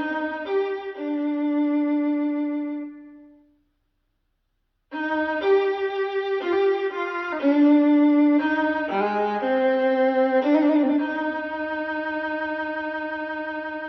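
Violin music played back through a Technics SC-C70 MK2 all-in-one music system. A phrase ends on a held note that fades out about three and a half seconds in. After a second of silence a new phrase of slow, held notes begins, and it ends on a long note that fades away near the end.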